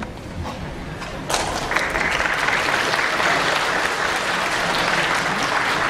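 Audience applauding, breaking out suddenly about a second in and then holding steady.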